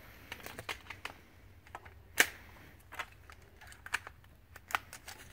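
Scattered small clicks and knocks from a rifle being handled and aimed, with one sharp, much louder crack about two seconds in.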